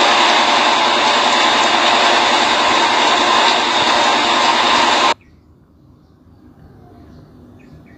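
Loud steady rushing hiss of firefighting water jets spraying onto a burning tanker. It cuts off abruptly about five seconds in, leaving only a faint background with a few small chirps.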